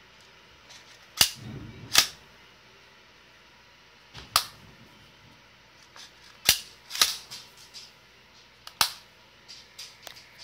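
An AR-15's action being cycled by hand, giving a series of sharp metallic clacks from the bolt carrier group and charging handle. The two loudest come about a second in, under a second apart, and several more follow at irregular intervals.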